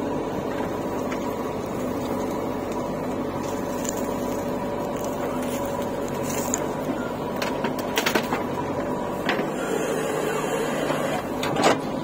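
JCB 3DX backhoe loader's diesel engine running steadily under load as the backhoe digs, swings and dumps soil. A few sharp knocks come about eight seconds in and once more near the end.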